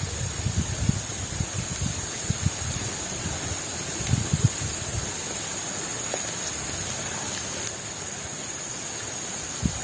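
Steady rush of flowing river water, with a few soft low thumps.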